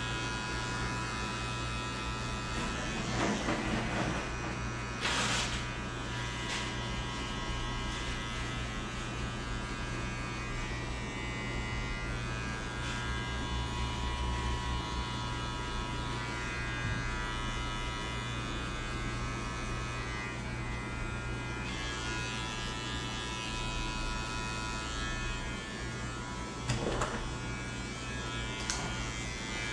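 Electric hair clippers running with a steady buzz while cutting a fade, with a few brief louder rasps a few seconds in, again shortly after, and near the end.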